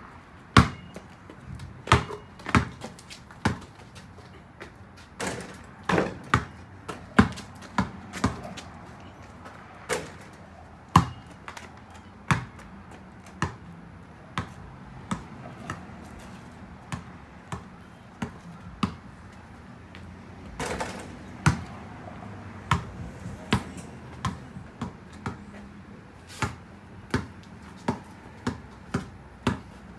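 Irregular sharp taps and knocks, one or two a second and uneven in loudness, over a faint steady hiss.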